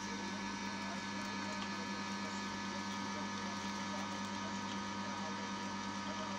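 Electric screw oil press running with a steady hum as it presses flaxseed.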